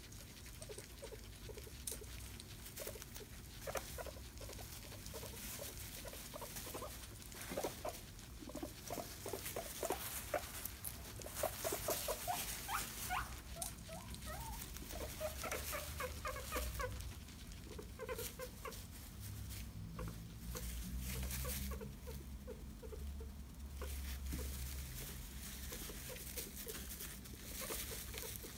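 Guinea pig eating banana held in a hand: soft chewing with runs of short, quick squeaky sounds, busiest in the middle.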